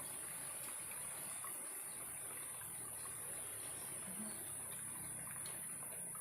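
A small stream trickling, under a steady high-pitched drone of insects, which is the loudest part of the sound and holds unchanged throughout.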